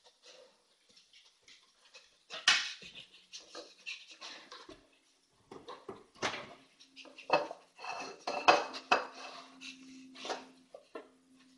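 Irregular clinks and clatters of hard objects as a dog noses and pushes into the narrow gap beside a kitchen appliance. They come in scattered bunches, loudest about two and a half seconds in and again around eight and a half seconds.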